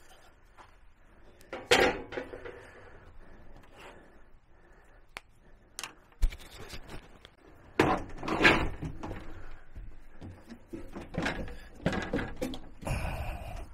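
Work-handling noises on a countertop: scattered knocks and clatter of hand tools being picked up and set down, and a metal-framed stove top being laid into the counter cutout. The loudest burst of clatter comes about eight seconds in.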